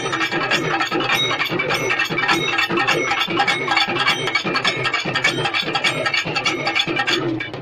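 A troupe of procession drummers playing a fast, dense rhythm on rope-laced barrel drums and frame drums, with rapid strikes running continuously.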